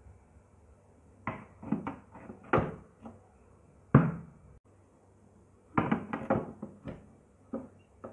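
Knocks, taps and clicks of a steel mixer-grinder jar and its clear plastic lid being fitted and handled, in short irregular groups, with one sharp knock about four seconds in. The grinder motor is not running.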